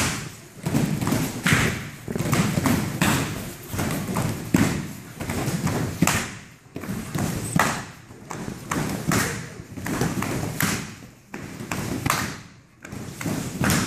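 Taekwondo sparring: a quick, irregular run of thuds and slaps as kicks and punches land on padded chest protectors and feet stamp on the foam mat.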